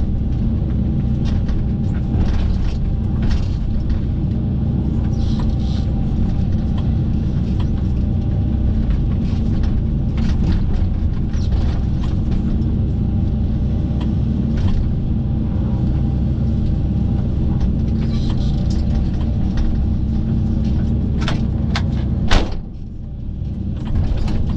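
Kobelco SK135SR-7 excavator's diesel engine running steadily under hydraulic load while its ripper works through tree-stump roots, with scattered clicks and knocks. Near the end comes a sharp knock, after which the engine sound drops for a second or two, then picks back up.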